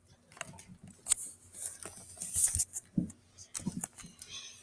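Objects being handled and rummaged through in a box: an irregular string of light clicks, knocks and rustles.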